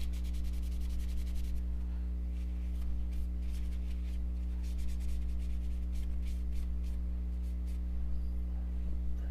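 Quick scratchy rubbing strokes from cleaning a knife part by hand, fast and even for the first second and a half, then in short bursts. A steady low electrical hum runs under them and is the loudest sound.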